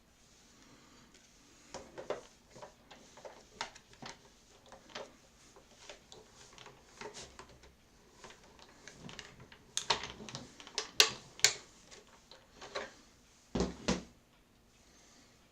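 Irregular clicks, taps and knocks as a die-cutting sandwich of cutting plates, a metal die and paper is handled and run through a die-cutting machine. The clicks come thickest and loudest about ten seconds in, with two heavier thumps near the end.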